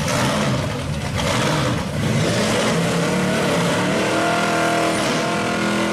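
Drag-racing Camaros' engines running loudly at the starting line. About four seconds in, one engine revs up in a rising pitch and holds high.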